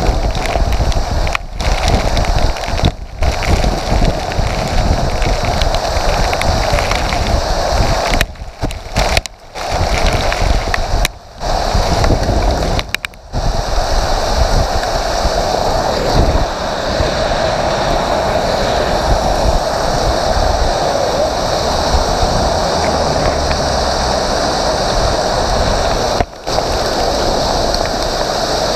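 Hailstorm: hail and heavy rain pelting down in a loud, steady roar, with wind buffeting the microphone. The sound drops out briefly several times, mostly around the middle.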